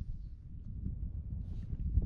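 Wind buffeting the microphone, a steady low rumble, with a few faint clicks and a brief hiss over it.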